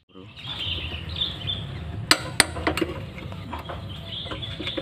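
Metal clinks of a T-handle socket wrench working the cylinder-head bolts of a GX200-type single-cylinder engine: two sharp clinks about two seconds in, then a few fainter ones. Birds chirp in the background.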